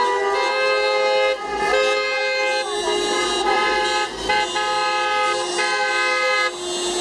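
Several car horns honking at once in long, overlapping blasts of different pitches, breaking off and starting again every second or two: the celebratory honking of a car parade driving around a roundabout.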